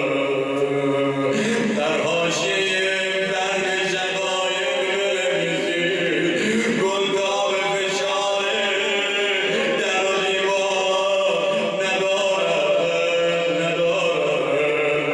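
A man's voice chanting a Persian mourning elegy (nowheh) into a microphone, melodic with long held notes and no pause.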